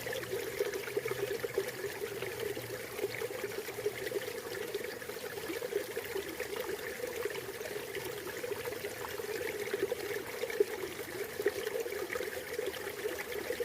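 River water flowing and burbling steadily over rocks, a continuous trickling splash with small irregular gurgles.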